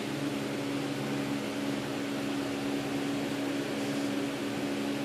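Steady mechanical hum: a constant low drone over an even hiss.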